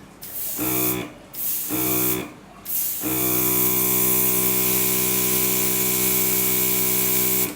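RIBO HC23 mini airbrush compressor humming while an airbrush gun sprays air with a steady hiss, in two short bursts and then one long spray of about four and a half seconds. The motor hum starts and stops with each burst, as the compressor's auto start-stop function switches it on and off with the trigger.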